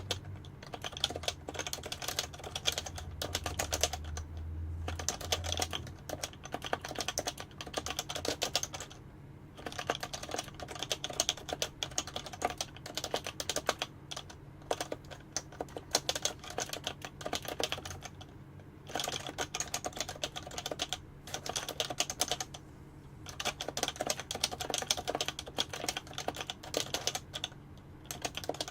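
Fast, continuous typing on a Happy Hacking Keyboard (HHKB) with Topre electrostatic capacitive switches. The keystrokes come in long runs broken by brief pauses.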